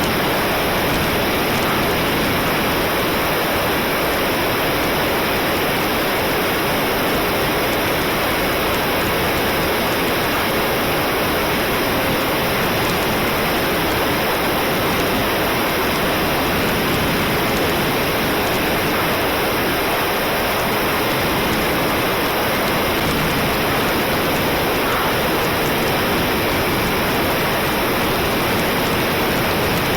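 A steady, even rushing hiss with no change in level, and no motor or propeller tone heard through it.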